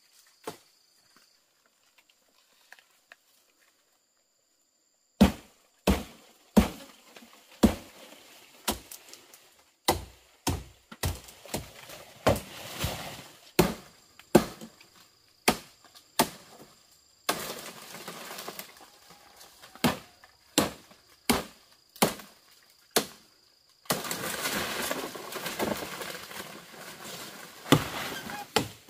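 Chopping strikes on wood: a run of sharp, separate chops, roughly one or two a second, starting about five seconds in after a near-silent start. Between the later chops there are stretches of steadier noise, loudest for a few seconds near the end.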